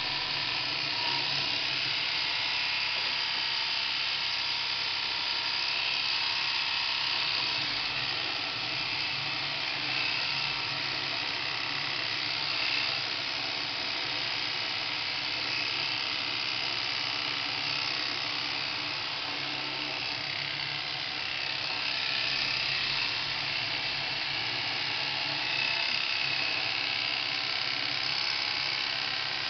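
Electric shearing handpiece running steadily as it clips an Angora rabbit's long wool.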